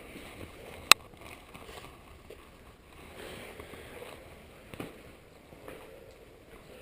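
Faint shuffling and scuffing of people moving about, with soft knocks and one sharp click about a second in.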